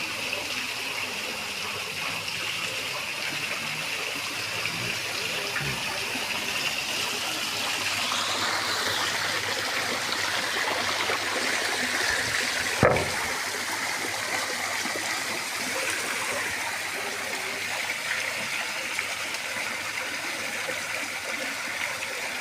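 Water fountain running: a steady rush of falling, splashing water, with one sharp knock about halfway through.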